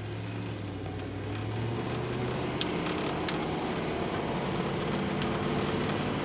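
Chevy Avalanche pickup's engine running steadily on a drive, fitted with an aftermarket cold air intake, with two short clicks near the middle.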